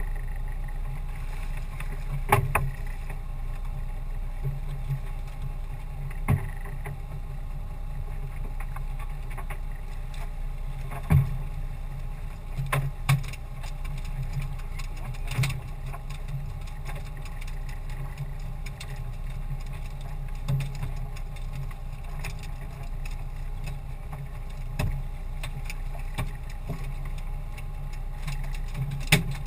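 Small open fishing boat at sea: water lapping and slapping at the hull over a steady low rumble. Occasional sharp knocks come through it, the last near the end as a snoek is swung aboard.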